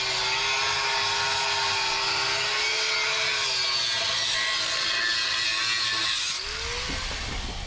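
A power tool running steadily, a held whine over a harsh hiss, which drops and changes about six seconds in with a brief rising tone.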